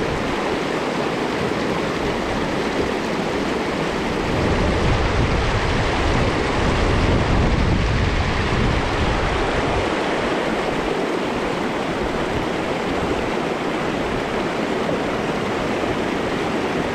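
Mountain stream rushing steadily, an even wash of water noise. A low rumble swells for several seconds near the middle.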